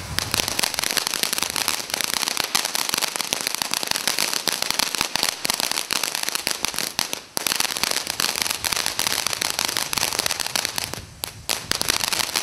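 TNT Little Miss firework fountain burning: a loud, continuous hiss thick with rapid crackles as it sprays sparks. The sound dips briefly about seven seconds in and thins out for a moment near the end before picking up again.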